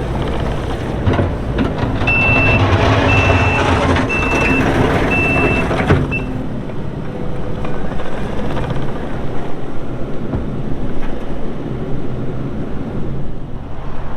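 Kubota SVL95-2s compact track loader's diesel engine running while its backup alarm beeps four times, about a second apart, as the machine reverses. The beeping stops about 6 seconds in and the machine noise drops, the engine still running.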